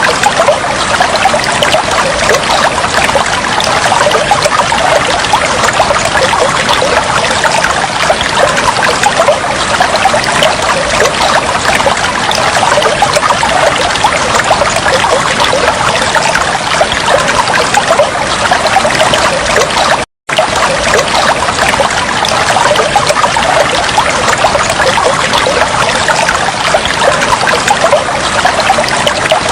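Water trickling and bubbling steadily, a dense patter of small splashes. It cuts out completely for an instant about two-thirds of the way through, then carries on unchanged.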